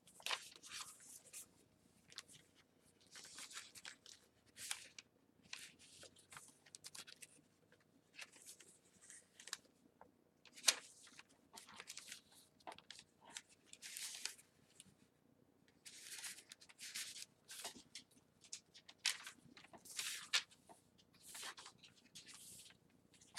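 Paper pages of a handmade journal rustling as they are turned and handled, in short crinkly bursts every second or so, with one sharper tap about ten seconds in.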